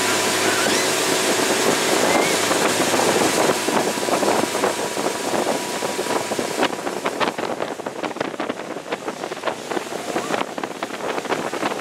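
Motorboat engine running at speed with the rush of its wake water. From about halfway on, wind buffets the microphone in rapid crackles.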